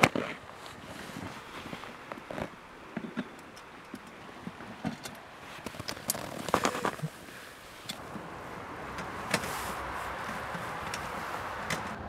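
Gear being handled on a plastic pulk sled: rustling and scattered knocks as a backpack is strapped down, and a sharp cluster of clicks about six and a half seconds in as a metal tow pole is fitted into the sled's hitch. A steady rushing noise builds over the last few seconds.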